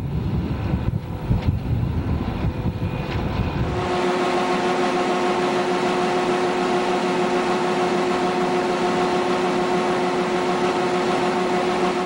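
Combine harvester running. Low, uneven rumbling with wind on the microphone gives way about four seconds in to a steady machine whine over an even hiss.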